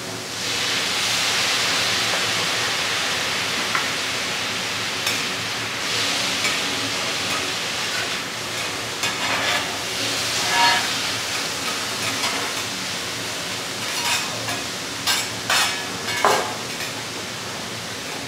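Scallops sizzling on a hot flat steel griddle as liquid is squirted onto them from a squeeze bottle, the sizzle surging loudly about half a second in. Later, steel spatulas clack and scrape against the griddle as the scallops are stirred.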